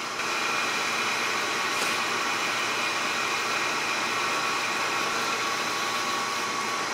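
Manual metal lathe running with its cutting tool taking a light finishing pass of about five thousandths along a spinning metal bar: a steady whirring with a faint high whine, a little louder just after the start as the cut gets going.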